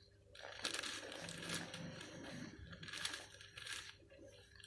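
6x6 Rubik's cube being twisted by hand: the plastic layers scrape and click in several quick turns in a row.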